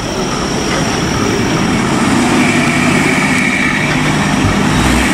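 Truck engine running steadily with a low rumble.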